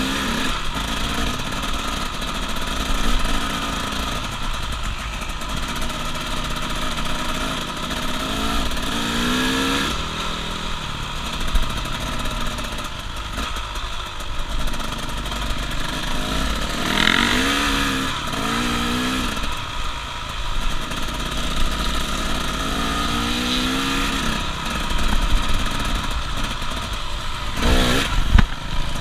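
Dirt bike engine running under the rider, its pitch rising again and again as the throttle is opened through the gears, with a louder burst of revving near the end.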